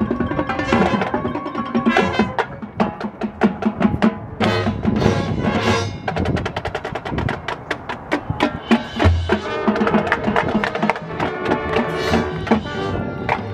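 High school marching band playing its field show: frequent sharp drum and percussion strokes over sustained wind and brass notes.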